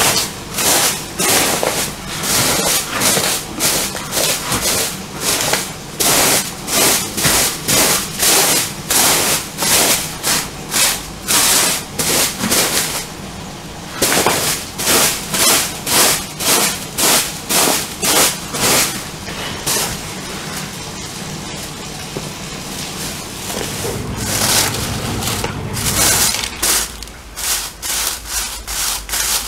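A broom sweeping a floor in quick repeated strokes, about two a second, with a short pause about halfway and a quieter stretch of lighter brushing before the strokes pick up again near the end.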